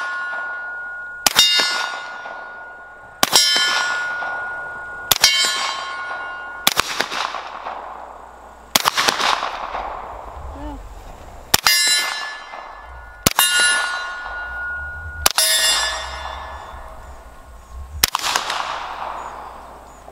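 Suppressed 9mm CZ Scorpion Evo 3 S2 Micro fired slow and steady, nine shots about two seconds apart. Most shots land on a steel plate target, which clangs and rings, the ring dying away before the next shot.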